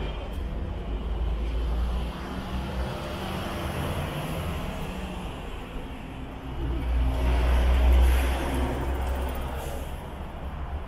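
Motor vehicles driving past in city street traffic, a low engine rumble that swells twice and is loudest about eight seconds in.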